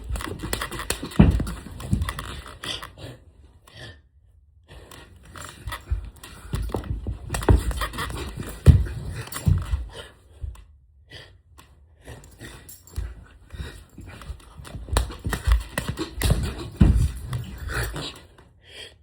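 A person panting and grunting with effort, among irregular knocks, bumps and rustling, as of someone straining to reach behind a bed to plug in a charger.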